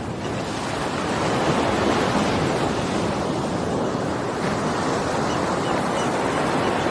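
Steady rush of ocean waves and wind.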